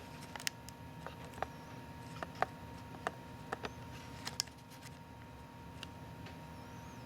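Slotted screwdriver working a tight screw loose in a Magpul Hunter X22 polymer rifle stock: irregular small clicks and taps of metal on the screw and stock, frequent for the first four seconds or so, then only a few, over a faint steady hum.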